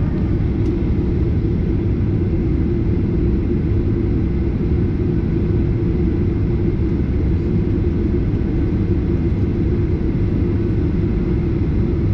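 Steady low rumble inside the cabin of a Boeing 737-800 on the ground before takeoff, from its CFM56 engines at idle and the cabin air conditioning, unchanging throughout.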